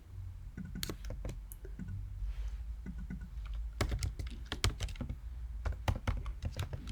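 Typing on a computer keyboard: irregular key clicks, coming in quicker runs in the second half.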